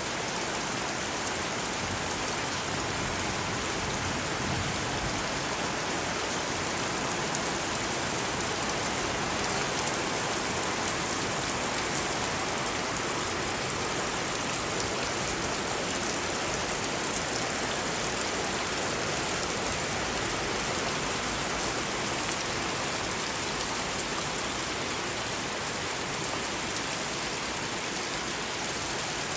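Steady rain falling, a dense even hiss of drops hitting a surface with no thunder.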